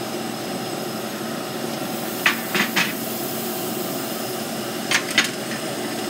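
Short metallic clanks of hand tools on the bolted steel spokes and rim of a tractor wheel: three quick clanks about two seconds in and two more near five seconds, over a steady drone of shop machinery.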